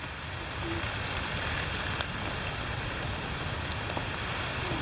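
A steady, even wash of water noise with a few faint ticks: rain falling or swollen floodwater rushing.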